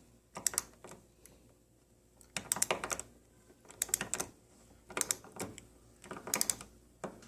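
Hand tap being turned into a drilled hole in a steel door-jamb hinge plate, cutting threads through thin metal. It clicks in short bursts, five times about a second and a half apart, one burst per turn of the tap.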